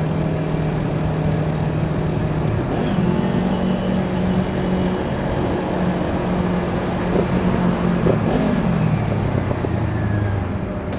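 Kawasaki Ninja 400's parallel-twin engine through an Akrapovic slip-on exhaust, heard while riding: a steady engine note that rises in pitch about three seconds in, holds, then drops lower near the end as the revs fall.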